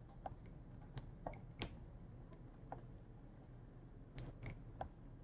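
Faint scattered clicks and ticks of test leads and alligator clips being handled, as the light fixture is hooked up to power, with a small cluster of clicks near the end.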